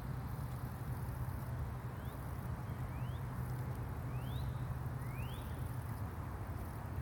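Outdoor ambience in an open field: a steady low rumble, with four short rising chirps about a second apart.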